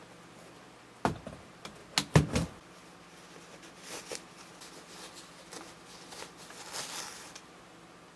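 Handling noise: a knock about a second in, then a quick cluster of louder knocks as a cardboard box is handled and set aside. After that comes soft rustling of a cloth drawstring bag being pulled open.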